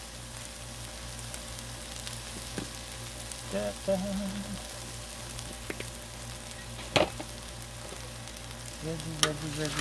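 Diced vegetables sizzling steadily on the hot steel flat-top of a Blackstone griddle, with vegetable oil squirted onto the surface from a squeeze bottle. A single sharp click about seven seconds in.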